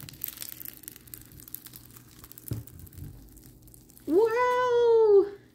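Bead-filled slime crackling softly as it is squeezed and stretched, then, about four seconds in, a loud, drawn-out high vocal call that rises then falls in pitch over about a second, like a long meow.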